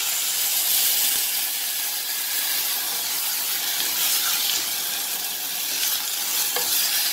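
Steady sizzling hiss from a hot pressure cooker as water is poured over moong dal and chopped fenugreek leaves fried in ghee, and the mix is stirred with a wooden spoon.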